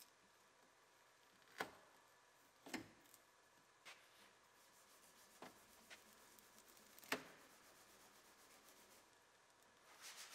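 Near silence broken by about half a dozen faint crackles and ticks as a foam door water barrier is slowly peeled off its sticky sealant on the door's inner panel. A faint, fast rhythmic rubbing begins near the end.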